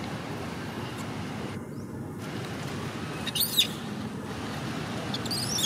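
Steady outdoor background hum with two short, high-pitched chirping calls, one about three and a half seconds in and another near the end.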